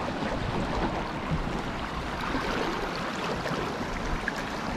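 Steady rush of wind on the microphone mixed with small waves washing over shallow rocks.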